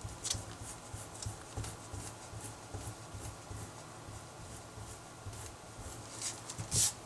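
Handwriting on paper: a run of short scratching strokes of a pen or pencil working out a factoring problem, with a louder pair of strokes near the end.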